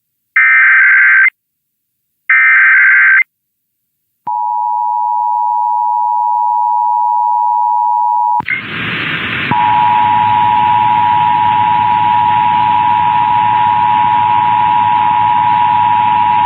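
Emergency Alert System test: the last two SAME header data bursts, each a short buzzy chirp about a second long, then the EAS two-tone attention signal held steady. About eight seconds in, a hiss of static comes in under it and the tone drops out for a moment before going on.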